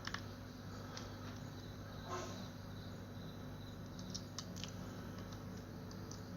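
A few light clicks and taps of small plastic parts as the push-button switches are seated into a motorcycle digital meter's housing, over a steady low electrical hum.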